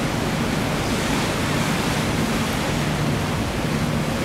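Steady rushing noise of the sea swell and wind on the microphone, with a low steady machinery hum underneath.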